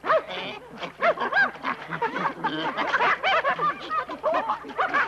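A chorus of overlapping high creature cries and chatter, each call rising and then falling in pitch, from the film's ape-like Tropi creatures.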